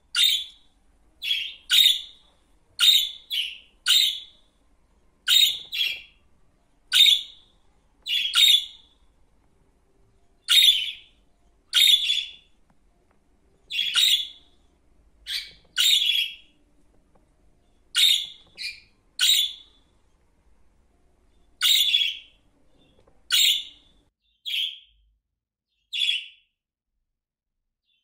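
Budgerigars calling: short chirping calls, often in pairs, repeated about every one to two seconds with near-quiet gaps between them.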